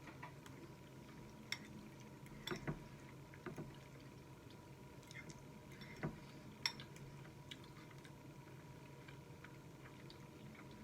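Faint eating sounds of spaghetti being chewed: soft wet mouth noises with a handful of short, sharp clicks and taps scattered through.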